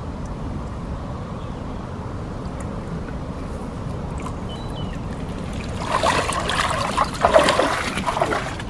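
Water splashing and streaming off a carp landing net as it is lifted out of the lake with a fish in it, starting about six seconds in, over a steady low rumble.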